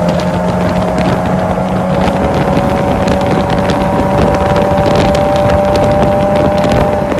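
Lamborghini engine running at steady high revs, its pitch climbing slowly, with scattered crackles over a rushing noise; it cuts off abruptly near the end.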